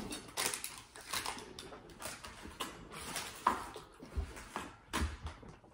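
Quiet eating at a table: chewing with scattered small clicks and rustles from handling plastic takeout containers and wrappers, and a few soft knocks.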